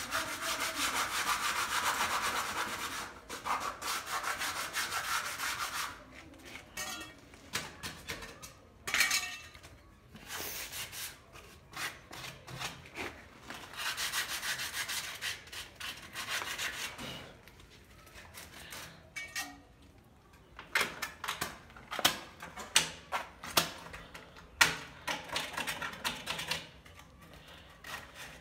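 Sandpaper rubbed by hand over a metal window grille, stripping it for repainting: long stretches of steady rubbing strokes, then shorter, sharper scrapes and taps in the second half.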